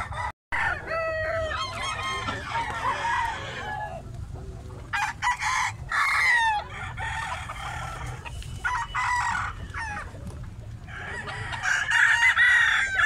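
Several gamecock roosters crowing again and again, the calls overlapping, with clucking between them; the crowing is loudest near the end. There is a brief dropout to silence about half a second in.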